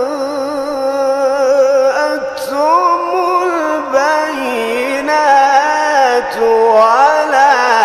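A man's voice reciting the Quran in the melodic, chanted style, drawing out long ornamented notes whose pitch quivers and winds up and down, with a few brief breaks between phrases.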